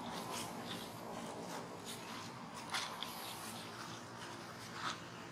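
A macaque walking over dry leaf litter: light rustling and crackling of the leaves underfoot, with a sharper crackle about halfway through and another near the end.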